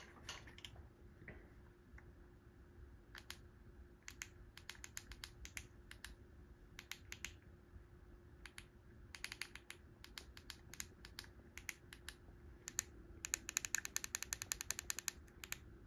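Faint clicking of keys being pressed, in short scattered groups and then a fast run of clicks about thirteen seconds in, over a faint steady hum.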